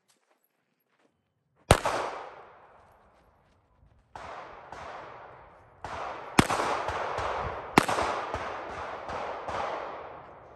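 Pistol shots on an outdoor range: a single shot about two seconds in, then a rapid string of about a dozen shots, some louder than others, each followed by a long fading echo.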